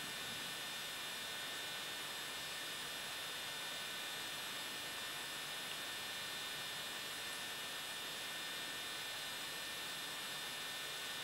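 Steady electrical hum and hiss with a few faint high, constant tones, unchanging throughout; the fingers on the board make no audible taps.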